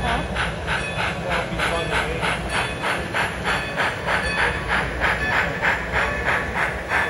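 Steam-locomotive chuffing with hiss from the sound system of an HO scale model of Great Western No. 90, at an even beat of about three chuffs a second as the engine passes. The chuffs grow a little louder near the end.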